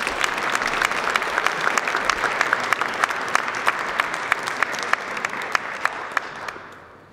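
An audience applauding: dense clapping that dies away near the end.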